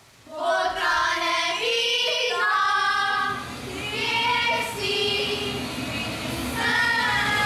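A group of children singing together, holding long sung notes.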